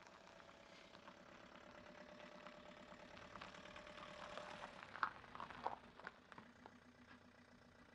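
Van engine running as the van rolls slowly over loose gravel, tyres crunching on stones, growing louder as it nears. A few short, sharp squeaks come about five to six seconds in.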